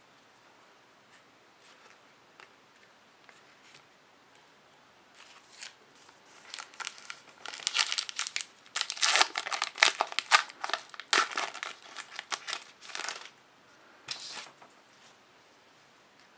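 Foil wrapper of a trading card pack being torn open and crinkled, a dense crackling that starts about five seconds in, is loudest in the middle and stops near the end.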